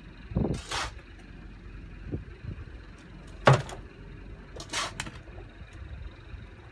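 Compost being filled into a potato-growing barrel: a few short, rough scrapes and rustles, with a thud about three and a half seconds in.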